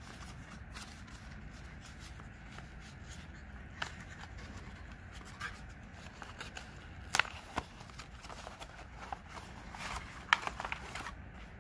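Paper envelope being handled and opened by hand, its string tie unwound from the button closure: soft paper rustling with scattered sharp crinkles and clicks, the loudest about seven and ten seconds in.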